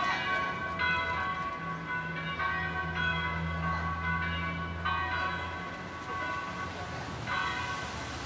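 Church bells of a Gothic sanctuary tower being rung: strokes fall every second or two at uneven spacing, each one left ringing with several overlapping tones. A low steady drone runs under the middle of it.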